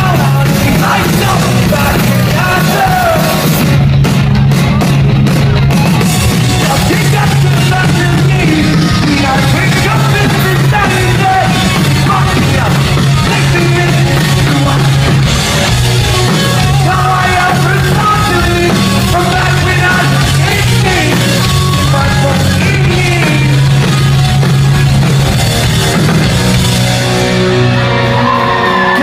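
Pop-punk band playing live at loud volume, with electric guitars, bass and drums under a sung vocal, heard from within the crowd.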